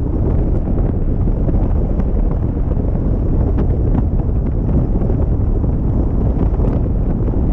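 Wind buffeting the microphone of a camera on a moving vehicle: a loud, steady low rumble with vehicle noise underneath.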